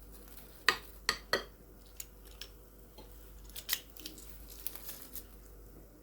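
Sharp clicks and taps of a kitchen utensil against a bowl: three quick ones in the first second and a half, then lighter scattered ones.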